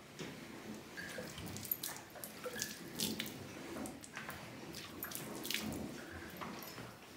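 Jets of milk squirting into a container as a cow is milked by hand: short hissing squirts, about two a second.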